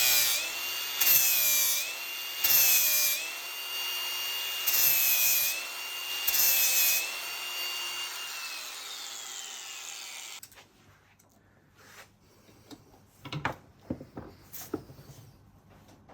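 Small high-speed power grinding tool running, pressed five times in short bursts against the spot weld on a KTM two-stroke powervalve tooth segment to flatten it. The motor then winds down and stops about ten seconds in, followed by a few light clicks and knocks.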